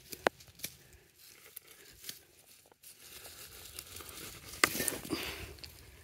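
Sweet potato vine being pulled up out of wood-chip mulch: a few sharp snaps early on, then rustling and tearing as the vine and its roots come loose, loudest about four and a half seconds in.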